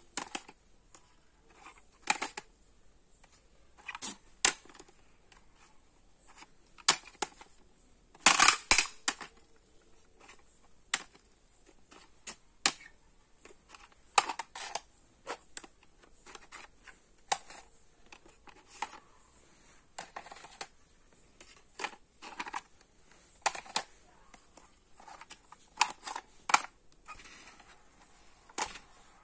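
Plastic audio cassette cases clicking and clacking against each other as they are picked up and set down on a stack: irregular sharp clicks, with a louder clatter about eight seconds in.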